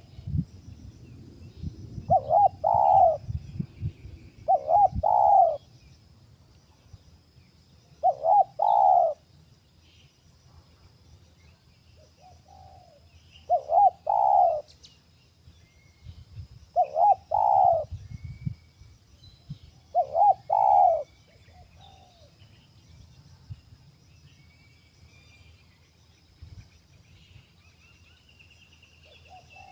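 Spotted dove cooing: short phrases of two or three coos repeated every three to four seconds, with faint chirps of other birds behind it.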